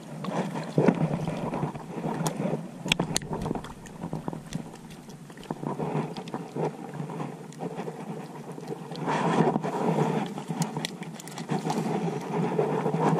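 Water splashing and sloshing as a small hooked fish is pulled in by hand and unhooked, with a few sharp clicks of handling about two to three seconds in.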